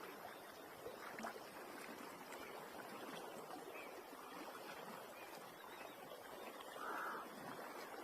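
Faint, steady rush of flowing river floodwater, with one short animal call near the end.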